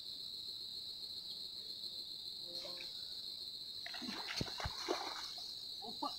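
Shallow river water splashing and sloshing in irregular bursts as a man wades and works his hands in the water under a grassy bank, mostly in the second half. A steady high insect chirring, like crickets, runs underneath.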